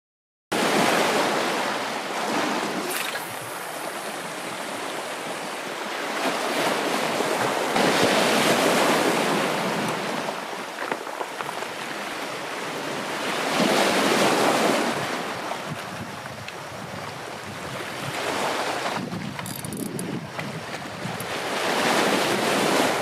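Sea waves washing against a rocky shore, the surge swelling and ebbing about every five to six seconds, with wind buffeting the microphone.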